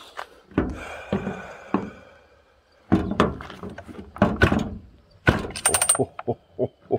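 Husqvarna 44 chainsaw being worked by hand: a run of sharp mechanical clicks and clunks in several groups, with ratchet-like clicking.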